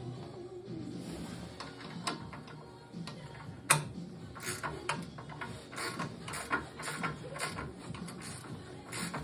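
Stubby ratcheting wrench clicking in short strokes as it turns a ski shock bolt on a snowmobile, with one sharp metallic knock about three and a half seconds in.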